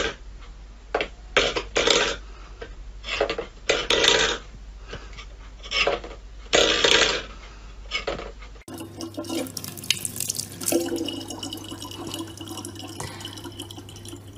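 A stainless steel bowl clattering and scraping on a wooden floor as a cat paws at it repeatedly. About nine seconds in, a thin stream of tap water runs into a plastic water bottle.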